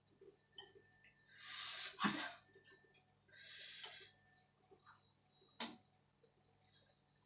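Two breathy rushes of air from a person, about a second and a half and three and a half seconds in, with a sharp click right after the first and another about five and a half seconds in.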